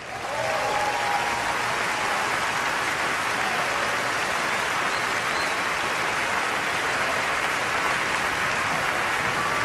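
Audience applause breaking out suddenly as the dance ends, then holding steady as dense clapping.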